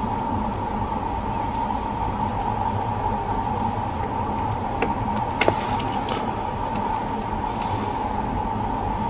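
Steady hum and rumble inside a police patrol car, with a sharp click about five and a half seconds in.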